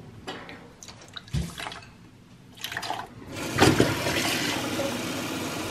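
A few light knocks from handling, then, a little past halfway, a kitchen tap starts running, filling a plastic measuring jug with water.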